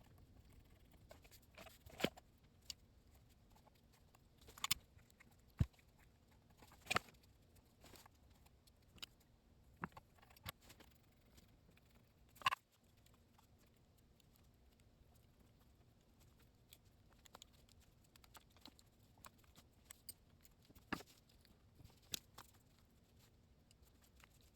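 Faint, scattered clicks, taps and small rustles of hands working a microphone cable and small XLR connector parts, with the sharpest click about twelve seconds in and a faint steady hum underneath.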